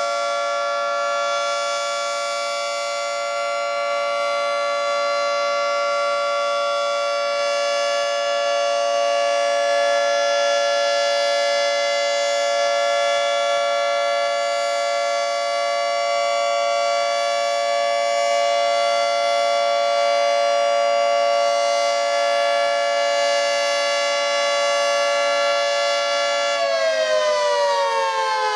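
Federal Signal 3T22 three-tone outdoor warning siren sounding its steady alert chord at full speed during a test of the all-zone alert signal. Near the end the pitch starts to fall as the siren begins winding down.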